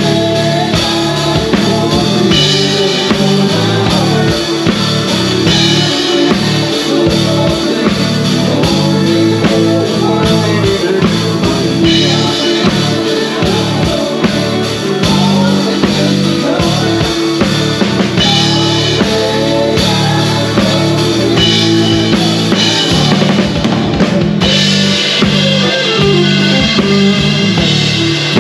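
Live country band playing, with the drum kit up close and loudest: kick drum, snare and cymbals keeping a steady beat under electric bass, guitars and keyboard.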